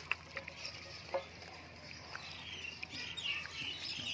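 Two puppies eating from a bowl, with scattered clicks and smacks from their chewing. From about halfway, birds chirp in the background with short, falling chirps.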